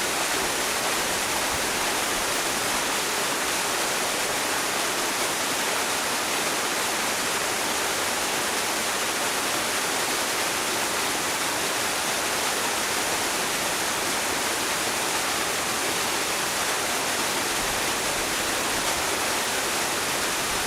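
An 8 m waterfall pouring steadily, a constant rushing of falling water with no change over the stretch.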